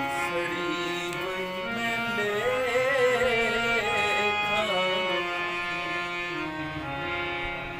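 Harmonium playing steady held chords, with a wavering, ornamented sung line over it in the middle.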